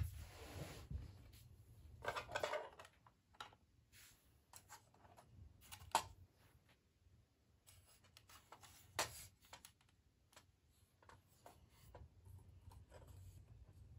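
Faint handling noise of a folded LED desk lamp being picked up and turned over in the hands: rubbing and a short rustle, with a few sharp clicks and taps, the loudest about six and nine seconds in.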